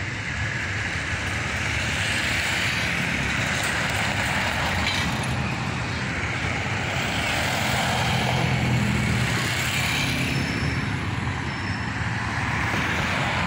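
A motor vehicle engine running steadily: a low hum under a broad rushing noise, a little louder around the middle.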